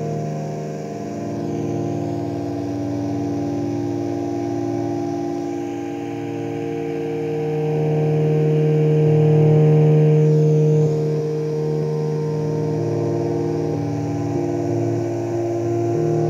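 Ciat-Lonbarde Rollz-5 analog synthesizer patched into Cocoquantus delays: a drone of several held tones from its Avdog oscillators through gong filters. The chord shifts as the panel is played, and it swells louder about halfway through before dropping back.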